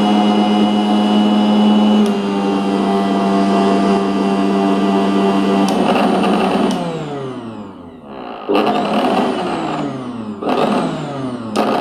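Kitchen mixer grinder motor running with a steady whine, running smoothly now that its noise fault is fixed. About two seconds in the pitch steps to a new speed. About six seconds in it is switched off and winds down with a falling pitch, then is pulsed on briefly two or three times, coasting down after each.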